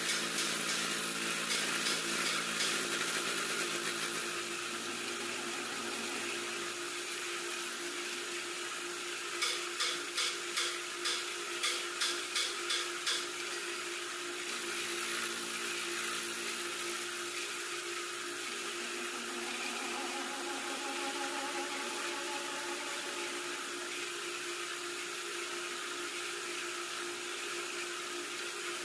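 A boring machine cutting out a motorcycle cylinder bore, metal chips ticking, for the first few seconds; the cut then stops and the machine runs on with a steady hum. About ten seconds in comes a quick run of about ten sharp clicks.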